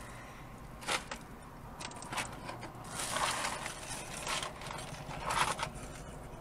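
Crunchy chewing of battered fried fish and rustling of the paper food box, heard as several short crackly bursts over a low steady hum.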